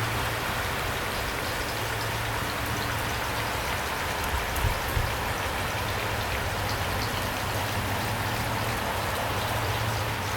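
Steady rain falling, with scattered individual drops ticking on a surface and a constant low hum beneath.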